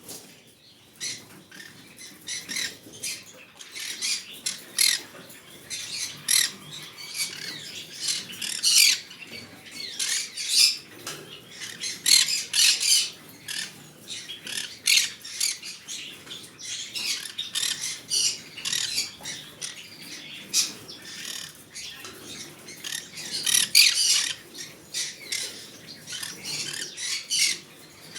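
Green-cheeked conure squawking: many short, sharp, high-pitched calls in irregular bursts, loudest around the middle and again near the end.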